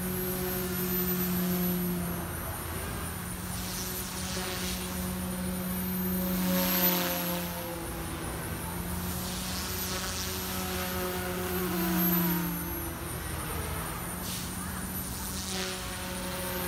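OMPHOBBY M2 electric RC helicopter in flight: a steady rotor hum with a thin high motor whine, swelling louder about seven and again about twelve seconds in as it passes nearer.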